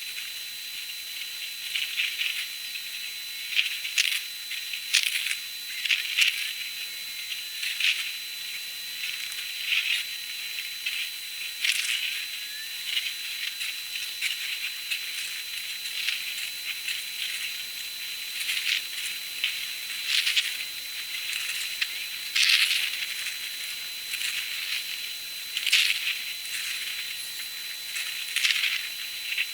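Storm sound played back thirty times faster than real time, so it is shifted far up in pitch: a steady high hiss with a thin constant whine, broken every second or two by short crackling bursts that are thunder rumbles squeezed into fractions of a second.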